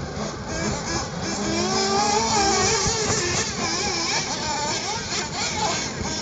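Several 1/8-scale nitro RC car engines whining at high pitch as they rev up and down around the track, their pitches overlapping and rising and falling with throttle.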